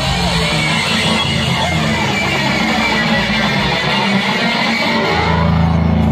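Live rock band playing an instrumental passage led by electric guitar over bass and drums, settling into a held low chord near the end.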